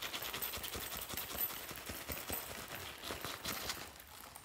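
Small plastic beads and glitter pouring out of a handbag into a glass dish of slime: a dense, rapid rattle of tiny clicks that thins out near the end.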